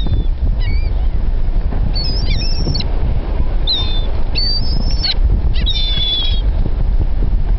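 Seagulls calling: a scattered series of short, high, wavering cries, the fullest one about six seconds in. A steady low rumble runs underneath.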